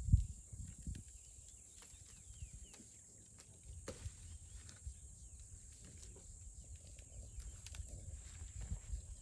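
Elephants browsing on a leafy bush, branches rustling and twigs snapping now and then, with a sharp snap about four seconds in. A steady high insect drone runs underneath, and low buffeting near the start.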